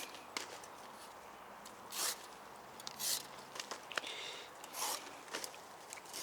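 Hand saw rasping through a cabbage's tough outer leaves and stem in several separate strokes, roughly one every second or two, with short clicks between them.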